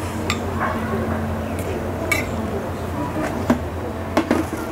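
A metal spoon clinking and scraping against a porcelain rice bowl while eating, a handful of short sharp clinks over a steady low hum. Near the end a lidded plastic container is handled.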